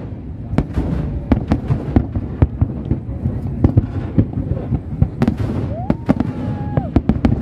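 Aerial fireworks shells bursting in quick succession: many sharp bangs and crackles over a continuous low rumble.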